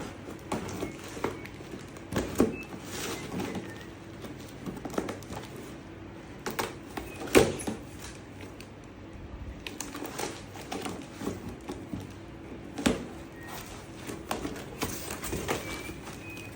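Hands handling and opening the packaging of a Roomba 615 robot vacuum: irregular clicks, knocks and rustles, with a sharper knock about halfway through and another near the end.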